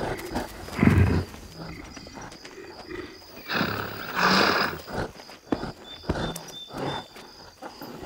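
Lionesses and a hippopotamus growling and snarling at each other in a standoff. A short, deep growl comes about a second in, and a longer hissing snarl follows around the middle, with scattered thuds between them.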